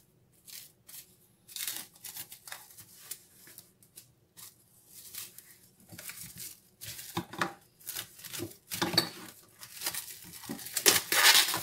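Plastic cling film being pulled off its roll, stretched over a plastic mixing bowl and pressed into place. It crinkles and rustles in irregular bursts, loudest near the end.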